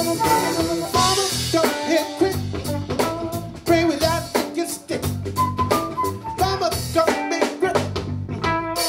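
Live funk band playing an instrumental groove: drum kit keeping a steady beat with electric bass and electric guitar, and a melodic lead line over the top.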